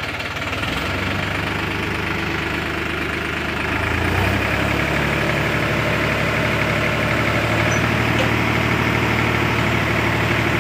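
Sonalika tractor's diesel engine running steadily as it powers the hydraulic tipper lifting a trolley load of sand; the engine gets louder and speeds up slightly about four seconds in as the bed rises.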